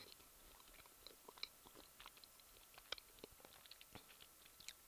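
Faint chewing of a Snickers bar, heard close on a headset microphone: soft, irregular little clicks and crunches of mouth and teeth.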